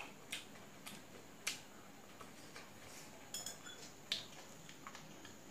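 Someone eating rice by hand from a steel plate: a few sharp, irregular clicks and smacks, loudest about a second and a half in and again about four seconds in.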